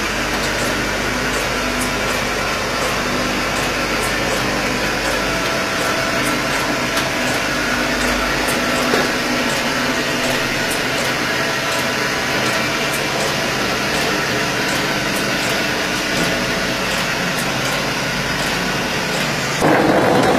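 Automatic cement plastering machine running, a steady mechanical drone of its motor with a light regular ticking over it. The sound changes abruptly and gets louder near the end.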